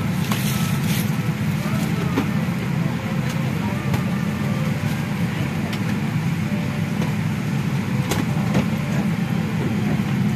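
Steady low drone of an airliner cabin in flight: engine and airflow noise, with a few faint clicks.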